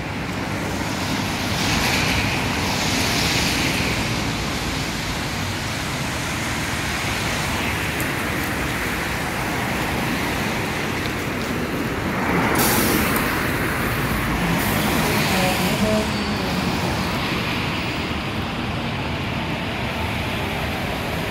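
Hino Blue Ribbon non-step city bus pulling in and stopping, its engine running, over traffic and tyre hiss on a wet road. A little past halfway there is a sudden loud hiss of air as the bus stands at the stop.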